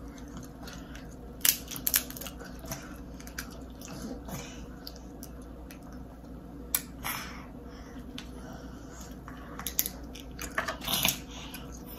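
Crab-leg shells being bitten and cracked open close to the microphone, with chewing in between. The cracks come as scattered short clicks and crackles, with a cluster near the end.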